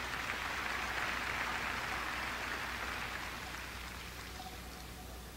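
Audience applauding in a hall, a noisy patter that swells over the first couple of seconds and then dies away.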